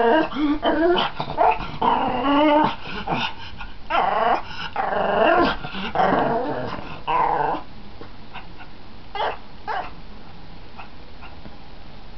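Pug growling and whining in a string of drawn-out, wavering calls that stop about two-thirds of the way through, followed by a few short, faint sounds.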